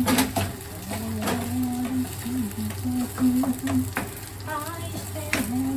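Fried rice sizzling in a pan as it is stir-fried, the spatula scraping and knocking against the pan in short, irregular clicks.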